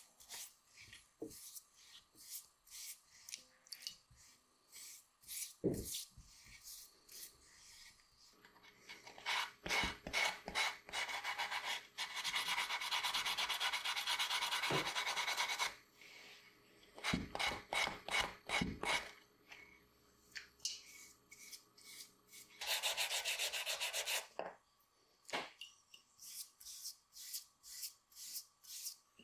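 Hands rubbing and smoothing a wet coating over a shoe last in short repeated strokes. Twice the rubbing turns fast and continuous: for several seconds near the middle and briefly near the end.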